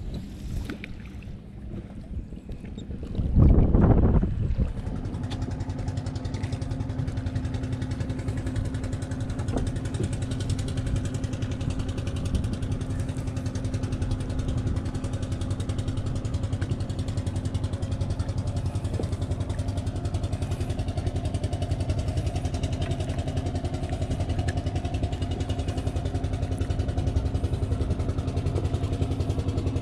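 A small fishing boat's engine starts about four seconds in, after a loud rush of noise, and then runs steadily at an even speed.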